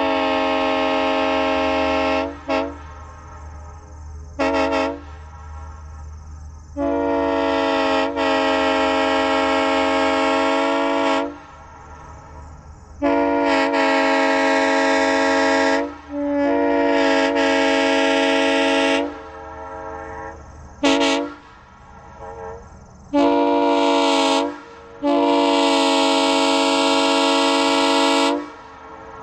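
Restored Burnett Power Saws M3 three-chime locomotive air horn blowing about nine blasts of one steady chord. Several long blasts of three to four and a half seconds mix with short toots. The horn has been rebuilt with new internals and diaphragms and sounds clean.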